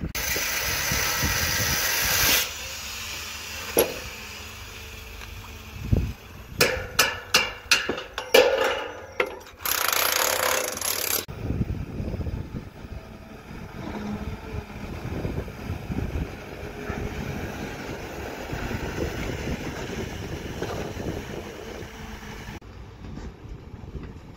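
Electric demolition hammer chipping concrete at the foot of wooden formwork, running in loud bursts with a string of sharp knocks between them. From about halfway on, a crawler excavator's diesel engine runs steadily with scattered knocks as the machine digs.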